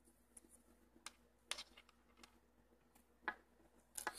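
Faint, irregular small clicks, about half a dozen, from steel safety pins being handled and bent back by fingers on a metal arrow field point; between them, near silence.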